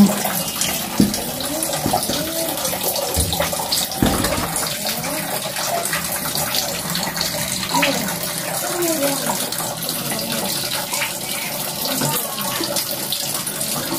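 Water running steadily from a tap, like a basin or bucket filling, with a couple of low thumps about one and four seconds in.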